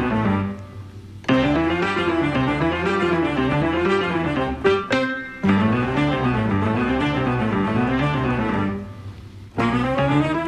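Instrumental background music with a repeating melody, which drops briefly to a quieter passage twice.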